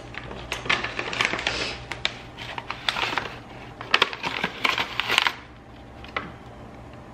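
Crinkling and rustling of a pouch of Swerve icing sugar being handled and tipped over a mixing bowl, with many sharp little clicks; it quietens to a few clicks after about five seconds.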